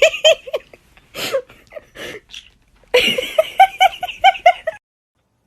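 Laughter: runs of short, pitched 'ha' notes. The longest and quickest run comes in the second half and stops abruptly about two-thirds of a second before the end.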